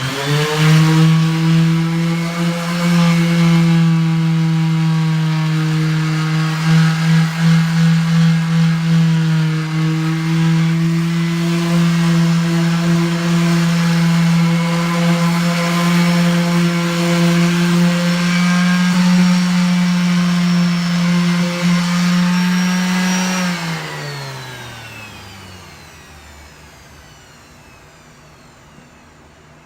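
Electric power sander with 60-grit paper running steadily for about 23 seconds, sanding a fiberglass hull repair whose resin is still a little tacky and gumming up the paper. It starts with a quick spin-up and, near the end, is switched off and winds down with falling pitch.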